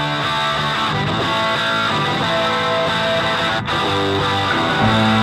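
Background music led by guitar, with held chords that change every second or so; a heavier bass comes in near the end.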